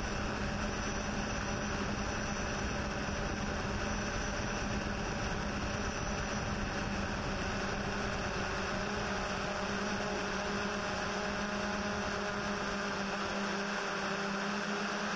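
Yuneec Typhoon H hexacopter's motors and propellers humming steadily while it hovers, a constant whirring drone with a low rumble underneath that falls away near the end.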